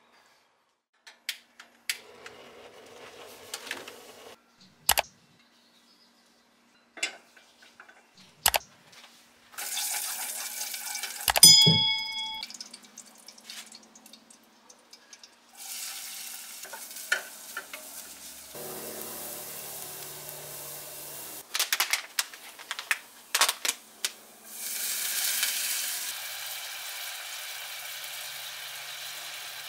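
Cooking sounds: scattered knocks and clinks of utensils, one ringing metal clang about eleven seconds in, and stretches of food sizzling as it fries in a hot pan, loudest and steadiest over the last few seconds.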